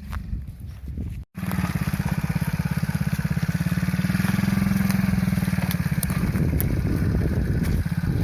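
Small 50cc children's ATV engine running with a rapid steady pulse. It is faint at first, then after a brief break about a second in it is loud and close.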